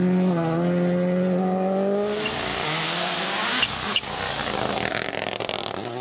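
Toyota GR Yaris Rally1 car's turbocharged engine at high revs, its note climbing as it accelerates. About two seconds in the engine gives way to a loud hiss of tyres throwing loose gravel, with two sharp cracks, and near the end the engine note climbs again.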